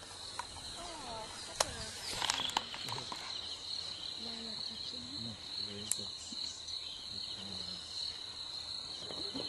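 Steady high-pitched insect chirring over grassland, with a faster pulsing trill joining it a few seconds in and again near the end. Quiet voices murmur underneath, and a few sharp clicks stand out.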